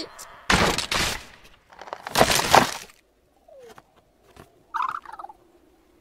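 Animated saber-toothed squirrel character making chattering cartoon vocal sounds: two loud noisy bursts in the first three seconds, then quieter, with a short warbling squeak about five seconds in.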